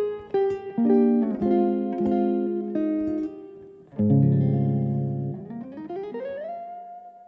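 Two guitars playing the closing phrase of a piece: quick plucked notes, then a deep full chord about four seconds in, then a note that slides upward and rings out, fading away.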